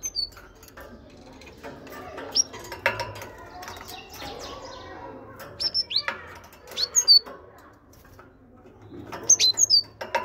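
Caged great tit giving short, high, sharply rising call notes in scattered groups of two or three, with wing flutters and light clicks as it moves about the cage.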